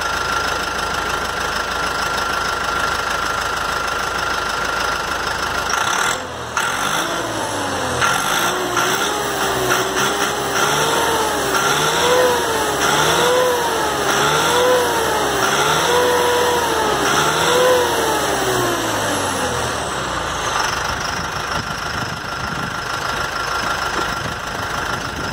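New Holland TL5.80 tractor's turbocharged diesel engine idling, then revved several times in a row, the pitch rising and falling about once a second, before dropping back to a steady idle. Revved like this it is what the owner calls roaring beautifully.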